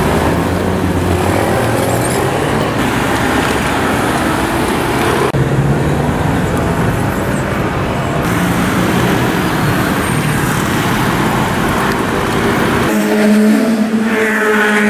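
City street traffic: motor scooters and cars running and passing at close range, the mix changing abruptly three times. Near the end a steady, evenly pitched engine note holds.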